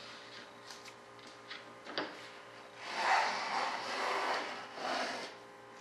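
Small hand plane shaving a quarter-inch hardwood strip on a model airplane's stabilizer edge. A sharp click comes about two seconds in, then three rasping strokes about a second apart.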